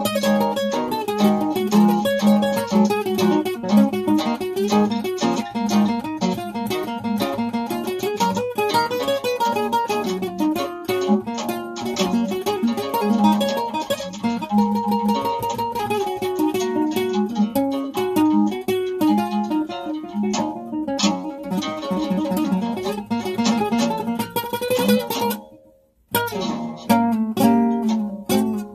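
Acoustic guitar played solo in a blues style: picked melody lines moving over a recurring low bass note. Near the end the playing stops for a moment, then resumes.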